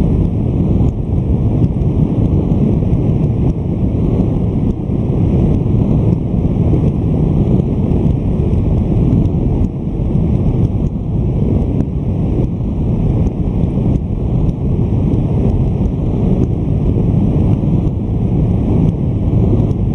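Wind rushing over the microphone with the low, steady rumble of a Honda VFR1200F motorcycle cruising at road speed.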